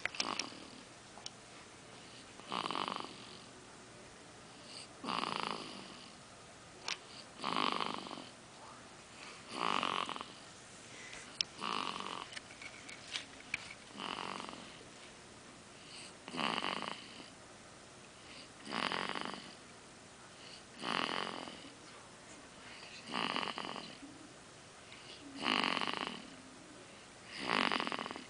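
A baby snoring in sleep, one snore on each breath, about every two and a half seconds, with a few faint clicks between the snores.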